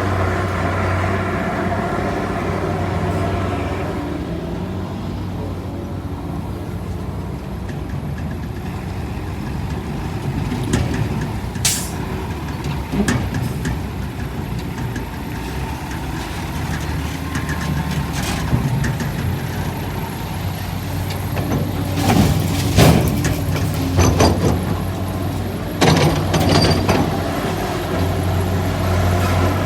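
Heavy construction machine's diesel engine running steadily, with sharp metallic clanks and knocks from about halfway on, most of them near the end.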